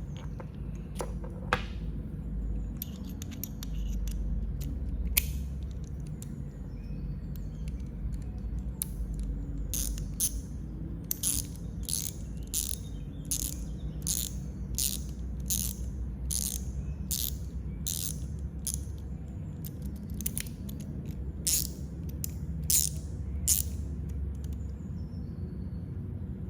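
Vessel stubby ratchet screwdriver's ratchet clicking as it is worked: a long, regular run of sharp clicks, about two a second, through the middle of the stretch, after a few scattered clicks. A low steady hum runs underneath.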